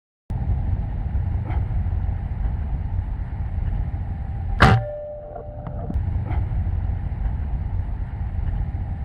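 A Hatsan Vectis .25 PCP air rifle fires once about halfway through: a sharp crack followed by a brief ringing tone, over a steady low rumble.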